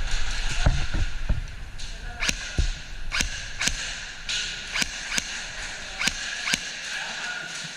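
Airsoft fire: a string of about nine single sharp snaps, irregularly spaced roughly half a second apart, starting about two seconds in, over a steady hiss.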